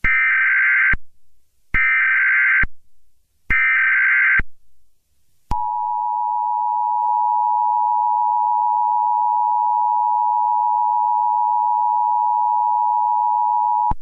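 Emergency Alert System signal: three short bursts of buzzing digital data tones, the SAME header, about a second apart, then about five and a half seconds in the steady two-tone attention signal. It announces a Child Abduction Emergency alert.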